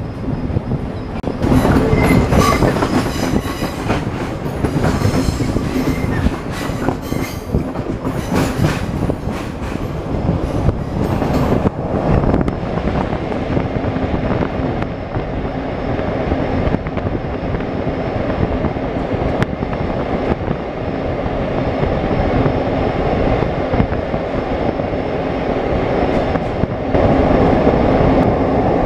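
Passenger train running on the rails, heard from an open carriage window: a steady rumble with sharp clicks and a few brief wheel squeals in the first half as it crosses points, then a fuller rumble as it runs through a tunnel, loudest near the end.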